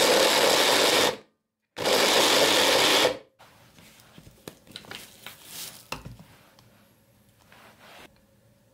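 Electric mini chopper running in two short pulses, its blade whirring through pieces of ginger and lemon. Then a few light plastic clicks and knocks as the motor unit and lid are lifted off the bowl.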